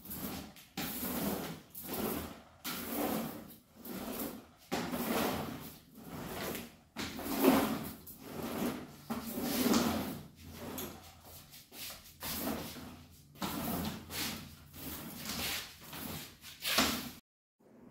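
A long-handled mop pushed back and forth over a hard floor, a swish with each stroke at about one a second, cutting off suddenly near the end.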